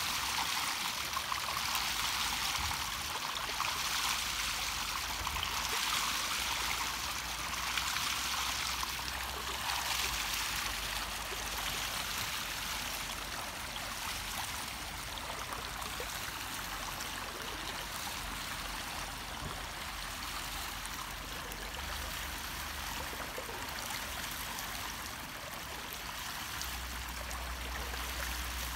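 Water rushing and splashing through the stone basins of a biodynamic flow form and spilling from one bowl into the next, swelling and easing in a pulse about every two seconds during the first half, then running more evenly.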